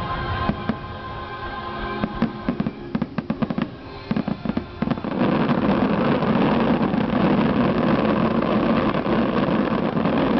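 Fireworks show music playing, cut through from about two seconds in by a quick run of sharp firework bangs. About five seconds in it gives way to a dense, continuous crackling barrage of fireworks that is louder than the music.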